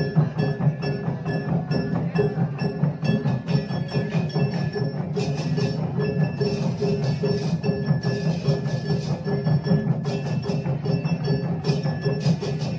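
A massed ensemble of okokan, large Balinese wooden cattle bells, clattering in a dense, driving rhythm, with drums and cengceng cymbals. The cymbal hiss swells in and out several times.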